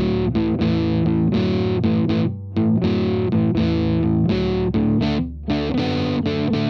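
Background rock music: distorted electric guitar playing chords, with brief breaks in the rhythm.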